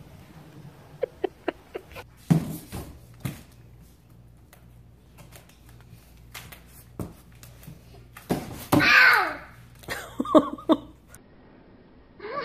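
A few sharp knocks and taps, then a young child's loud high vocal sound that falls in pitch, followed by several short vocal sounds near the end.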